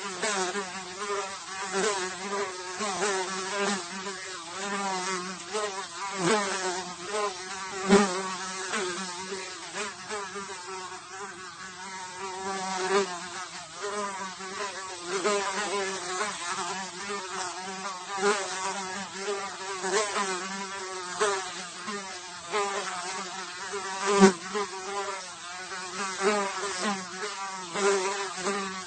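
A single fly buzzing in flight. The wingbeat hum wavers in pitch and swells and fades as it moves about, with a few brief louder moments when it comes close.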